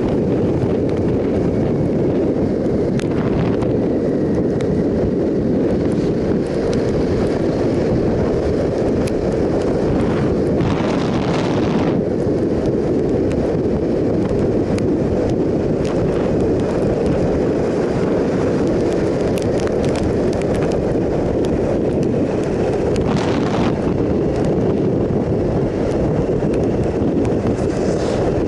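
Steady wind noise on the microphone of a 2007 Triumph Sprint ST 1050 motorcycle at road speed, over its engine and tyres on a wet road. A few times, about ten seconds in, after twenty and near the end, a rushing hiss briefly swells up as cars pass through the spray.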